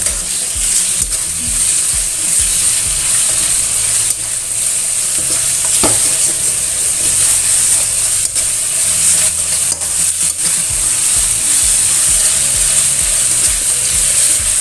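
Chicken pieces sizzling steadily as they stir-fry in oil in a stainless steel wok, cooking until the meat changes colour. A metal spatula scrapes and taps against the pan several times as it stirs.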